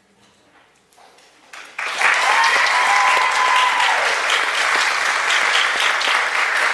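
Applause from a group of people, starting suddenly about two seconds in and going on steadily, with one voice cheering over the clapping for its first couple of seconds.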